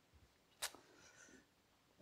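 Near silence: room tone, with one short, sharp click a little over half a second in and faint rustling after it.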